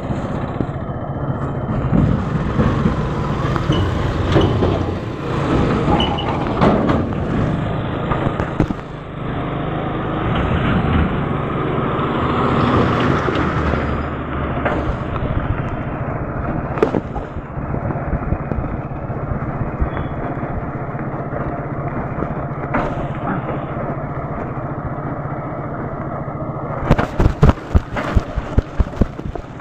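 Motorcycle engine running steadily while riding over a rough dirt and gravel road, with road and wind noise. Near the end comes a quick run of sharp cracks.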